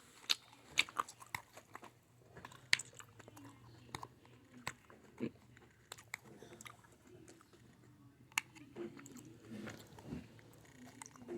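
Irregular light clicks and small taps, a dozen or so scattered sharp ticks with faint rustling between them, from small hard objects being handled.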